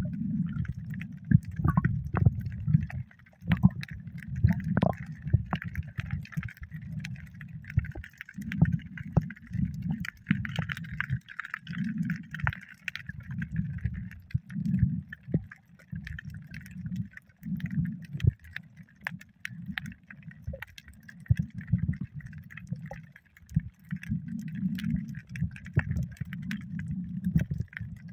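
Water sloshing around a snorkeler's camera at or just under the surface, in irregular low surges, with a faint hiss and scattered crackling clicks.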